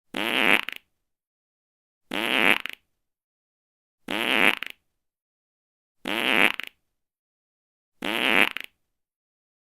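A fart sound, the identical short blurt repeated five times about every two seconds, each under a second long with a wavering pitch, with dead silence in between.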